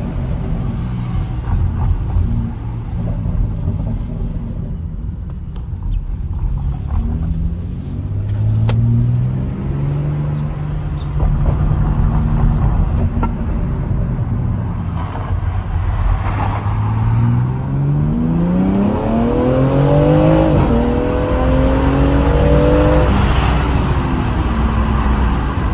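BMW X4 M Competition's twin-turbo inline-six running at low revs, then accelerating hard: the pitch climbs, dips at a gear change about two-thirds of the way in, climbs again, then falls away near the end.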